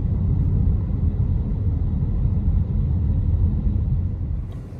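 Car driving on a road, heard from inside the cabin: a steady low rumble of engine and tyres that drops off near the end as the car slows.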